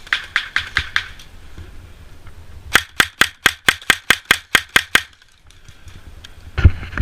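Airsoft gun firing rapid semi-automatic shots: a short string of about five in the first second, then a longer run of about a dozen sharp cracks at roughly five a second. A single louder thump follows near the end.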